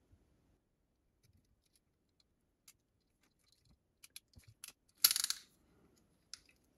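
Ratcheting crimping tool closing on a blue insulated spade connector: a few light ratchet clicks about four seconds in, then one loud, sharp metallic clack about a second later, followed by a couple more clicks.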